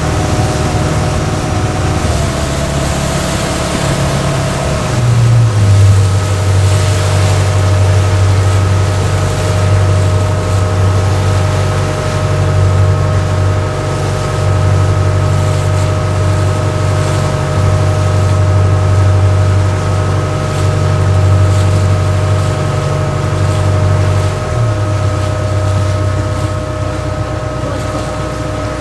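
A ferry's engine running under way: a loud low drone with a steady whine above it, over the rush of wind and water. The engine note shifts and grows louder about five seconds in, then changes again a few seconds before the end.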